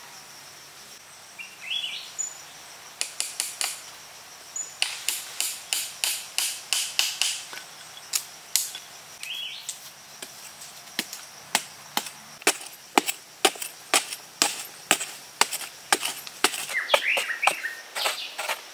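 A hand tool striking and digging into hard, dry earth again and again, sharp knocks at about two a second that start about three seconds in, with a few short bird chirps now and then.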